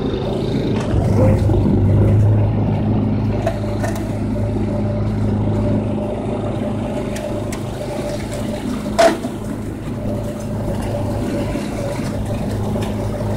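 Snapper mower engine running steadily at a constant pitch, a little louder for a couple of seconds near the start, with one short sharp clunk about nine seconds in.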